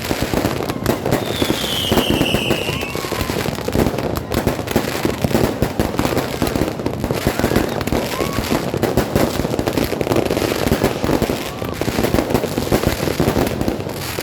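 Fireworks and firecrackers going off in a dense, continuous barrage of rapid cracks and pops. A falling whistle rings out about a second in.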